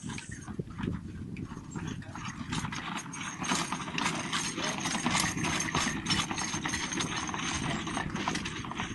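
Horse trotting in harness and pulling a carriage: hoofbeats mixed with the clatter and rattle of the carriage and harness, growing louder and busier a few seconds in.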